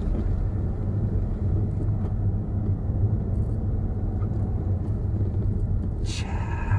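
Steady low rumble of a car's engine and tyres while driving uphill on a forest road, heard from inside the car.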